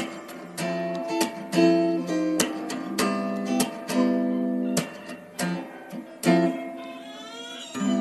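Background music: acoustic guitar picking and strumming chords at a steady pace.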